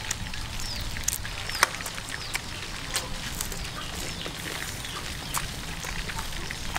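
Irregular sharp crunches and clicks from a deep-fried tarantula being bitten and chewed, over a steady low hum, with a few faint bird chirps.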